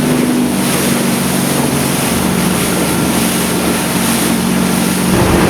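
Yamaha F350 5.3-litre V8 four-stroke outboard running steadily under way at about 4,100 rpm, its engine note under a rush of wind and water. The note shifts slightly near the end.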